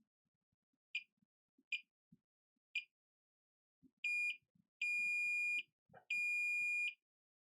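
Digital multimeter in diode mode beeping as the probes touch test points on a phone logic board: three short beeps as the meter ranges and gives its reading on each line, then three longer steady beeps of up to a second in the second half. Faint taps of the probes can be heard between the beeps.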